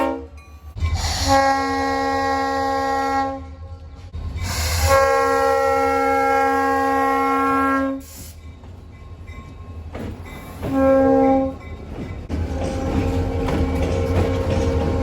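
Train air horn sounding a multi-note chord: two long blasts and then a short one. After that comes the low rumble of the train passing, with the horn chord heard more faintly over it.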